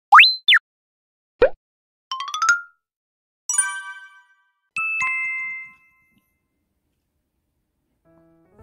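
Intro jingle of cartoon sound effects: a quick whistle-like glide up and back down, a short falling tone, a quick run of rising plinked notes, then a bright ringing chime and a two-note ding.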